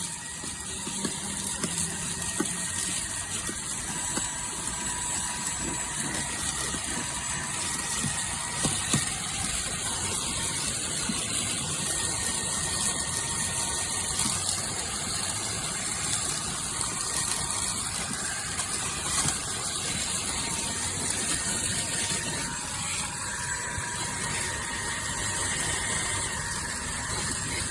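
Fanttik Fold V10 Apex cordless handheld vacuum running on its low setting, a steady rush of suction with a faint motor whine, as it is worked over car carpet.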